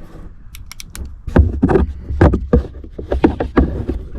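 Rummaging: knocks and clunks of hard objects being handled and moved, with a few quick sharp clicks about half a second in.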